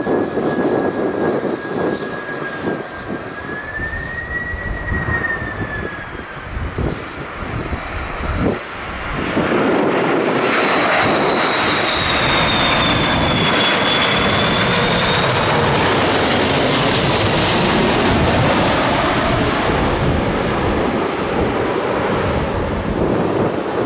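Airbus A330 twin-engine jet airliner on landing approach passing low overhead. A whine rises slightly then falls, then about nine seconds in the engine roar jumps loud and stays loud, its high whining tones falling in pitch as the jet goes over. Gusty wind buffets the microphone during the first nine seconds.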